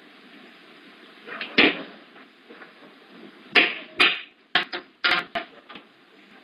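A stick striking in a run of sharp whacks: one about a second and a half in, then about seven in quick succession a couple of seconds later. Steady hiss from the security camera's microphone runs underneath.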